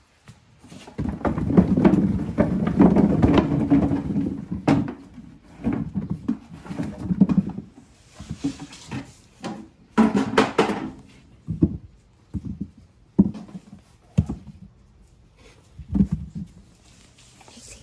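Irregular thuds and knocks of things being handled and set down, with a longer rough rubbing stretch about a second in.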